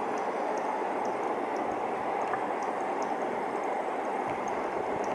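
Male cricket chirping faintly, short chirps about twice a second, made by rubbing one wing's edge along the toothed vein of the other. A steady hiss lies under the chirps and is louder than them.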